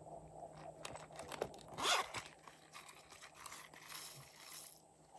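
Silicone pop-it fidget toy being handled and squeezed: irregular crackly rubbing, with one louder squeaky rub about two seconds in.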